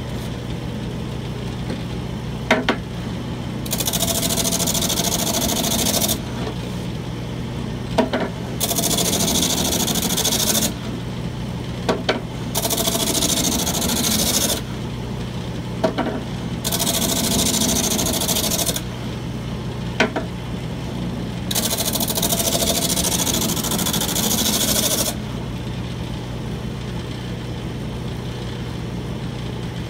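Wood lathe motor running steadily while a piece of wood is pushed against its homemade spinning sanding drum in five short passes, each a few seconds of sanding hiss, with a sharp knock shortly before each pass.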